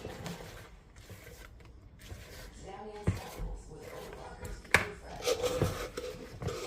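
Kitchen handling noises: a few sharp knocks and some rubbing, the loudest knock about five seconds in.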